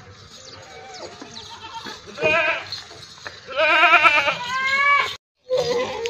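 Makhi Cheeni goats bleating: two quavering bleats about two and three and a half seconds in, the second longer, then a shorter call rising in pitch. The sound cuts out for a moment near the end.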